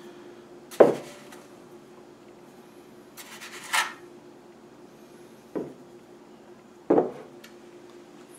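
Measuring spoon scooping sugar from a canister and tipping it into a mixing bowl of flour: a sharp knock about a second in, a short scraping scoop midway, and two lighter knocks later, over a faint steady hum.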